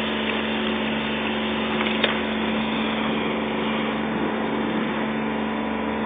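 Car-wash pressure washer running steadily: an even hiss of spray over a constant hum, with one short click about two seconds in.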